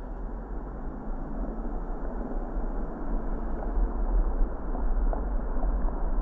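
Car being driven: a steady low rumble of engine and road noise, growing gradually louder.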